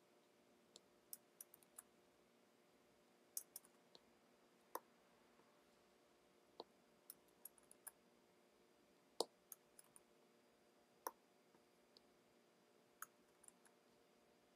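Computer mouse and keyboard clicking during code editing: about twenty sharp single clicks at irregular spacing, some in quick little runs, over a faint steady hum.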